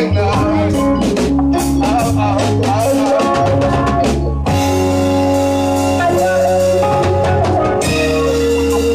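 Live reggae band playing, with the drum kit and a deep bass line leading. About halfway the drum hits thin out under held keyboard chords, and the full drum pattern comes back near the end.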